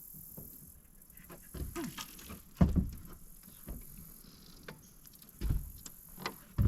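A few dull thumps and knocks at irregular moments, the loudest about two and a half seconds in, over a faint, steady high hiss.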